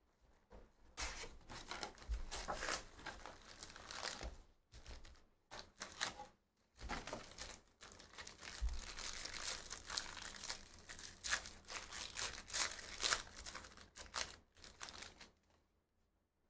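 Foil wrappers of 2023-24 Panini Donruss basketball card packs crinkling and being torn open by hand, in irregular rustling bursts with short pauses.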